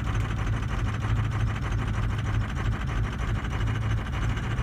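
Ford 6.0L Power Stroke V8 diesel idling just after a cold start, a steady, even rhythm. The scan tool shows injectors 2, 4 and 5 reading dead on contribution balance, and the FICM power supply failing; the owner calls it horrible on the cold start.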